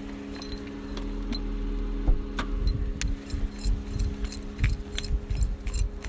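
A steady low hum with a thump about two seconds in, then high-heeled footsteps crunching and clicking on a gravel road, a few steps a second.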